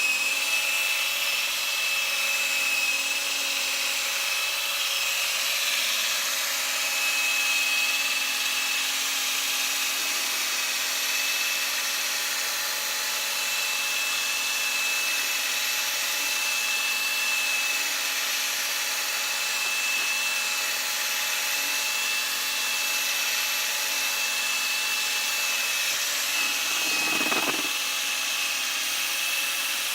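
Electric polishing machine running steadily with a high motor whine, buffing polish into a plastic vacuum cleaner body, with one brief deeper sweep near the end.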